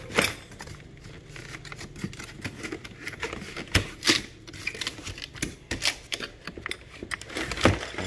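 Unpacking noise: cardboard scraping and rustling with irregular knocks and taps as a brush cutter's engine unit is worked out of its cardboard insert and lifted from the box.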